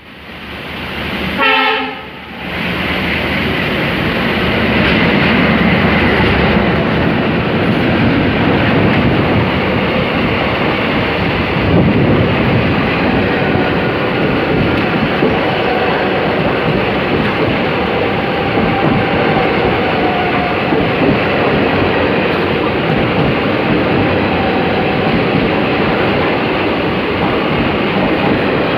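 A train horn sounds briefly about a second in, then the steady rumble and clatter of a train running on the rails.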